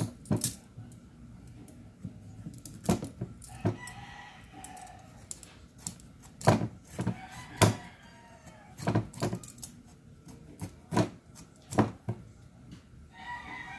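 Hand-held vegetable peeler stripping the rind off a kalabasa squash: sharp scraping strokes about every second or so, irregular, with light knocks on the plastic cutting board. A few faint drawn-out calls sound in the background.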